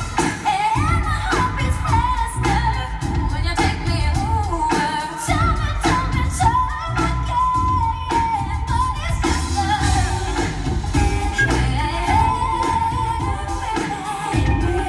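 Live pop concert music: a female lead vocal singing held and sliding notes over a band with a steady bass and drum beat, picked up from the audience.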